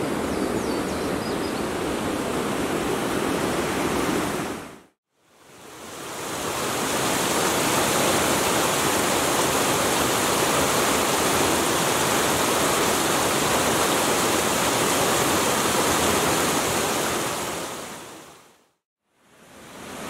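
A rocky brook rushing over small cascades, a steady splashing hiss. It fades out about five seconds in, fades back in a moment later, and fades out again near the end.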